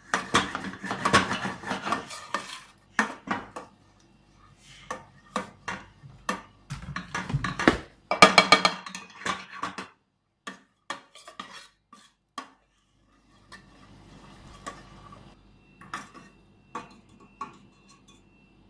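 Dishes, pans and metal utensils clattering and scraping in a kitchen. Dense runs of knocks come near the start and again around halfway, with scattered single knocks later.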